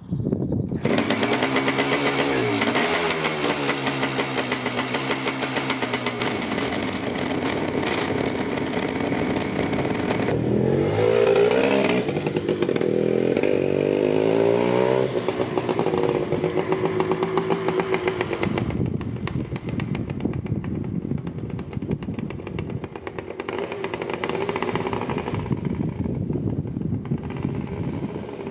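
1985 Kawasaki KX500's two-stroke single-cylinder engine catching suddenly about a second in, then revved up and down. Later the motorcycle accelerates with rising engine notes and fades after about two thirds of the way through.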